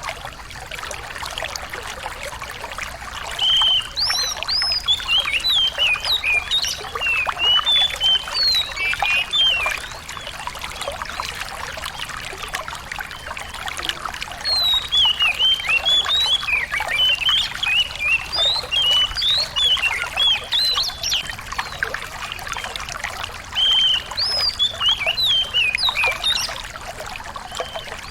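A small songbird singing in three runs of quick, high chirps that slide up and down, each lasting several seconds, over a steady rush of trickling water.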